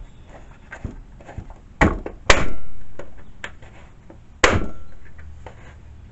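Workshop handling noise while a chainsaw is being reassembled: light clicks and taps, and three sharp knocks about two, two and a half and four and a half seconds in, each ringing out over a second or so.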